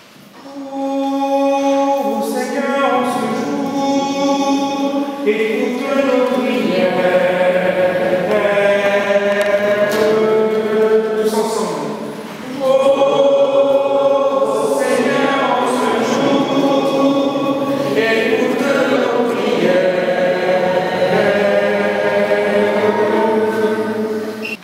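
A group of voices singing together in two long phrases, with a brief pause about halfway through.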